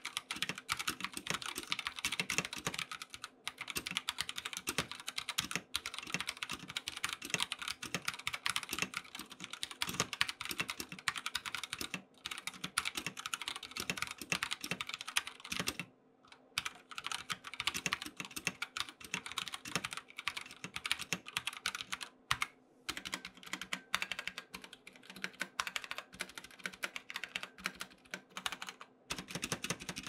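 Fast, continuous typing on an Akko 3068 65% mechanical keyboard with stock, unlubed Akko Orange tactile switches; the keyboard sits straight on a wooden desk without a desk mat. The typing breaks off for a moment a few times.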